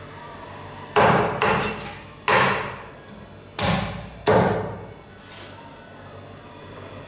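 Meat cleaver chopping boiled chicken feet on a thick round wooden chopping block: five heavy chops at uneven intervals, between about one and four and a half seconds in, each dying away quickly.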